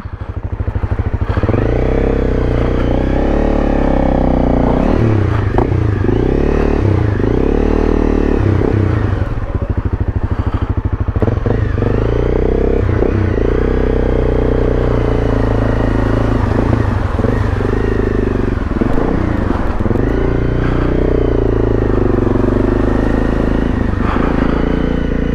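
Honda CRF250 Rally's single-cylinder engine running as the bike is ridden through deep floodwater, its revs rising and falling repeatedly with the throttle.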